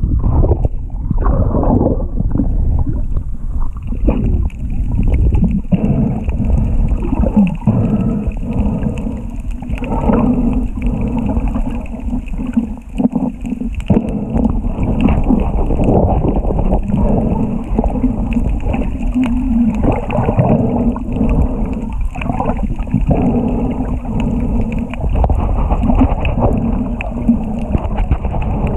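Muffled underwater rumbling and gurgling of air bubbles, recorded through an underwater camera housing on a wreck dive.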